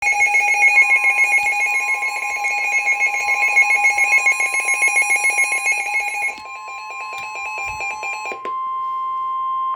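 NOAA Weather Radio warning alarm tone: a steady 1050 Hz tone that starts under a second in and cuts off at the end, heralding a severe thunderstorm warning. For the first six seconds or so a second electronic alarm sounds over it, a rapidly pulsing tone stepping between pitches, which weakens and then stops about a second before the end.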